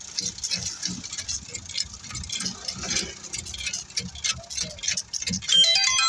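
Irregular clicking and scraping over a hiss from work on a bed of loose stone chips, as bitumen is sprayed and the chips are swept. About five and a half seconds in, a bright tinkling melody starts up.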